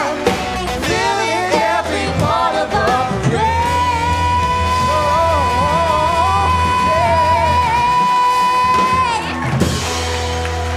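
Live band music with a lead singer: a few quick sung phrases, then one long held high note for about five seconds over a steady bass, ending about nine seconds in with a final crash as the song closes.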